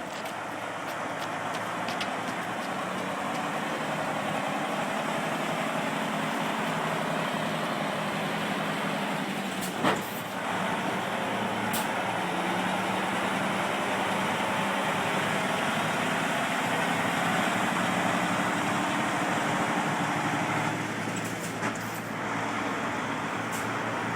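Diesel engine of the heavy-haul truck moving a Shinkansen car by road, running steadily with an even hum that grows a little louder in the middle. There is one sharp click about ten seconds in.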